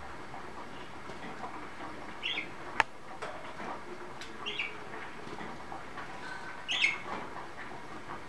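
Budgerigars giving three short chirps a couple of seconds apart, with one sharp click near the first chirp, over a low steady background rustle.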